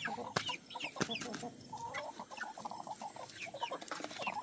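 Chickens clucking quietly, many short quick calls overlapping, with a couple of sharp clicks in the first second.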